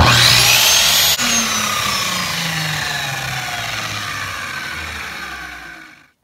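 Electric miter saw switched on, its motor whine rising to full speed for about a second. After a click the trigger is let go and the blade coasts down, the whine falling slowly in pitch and fading until it stops about six seconds in.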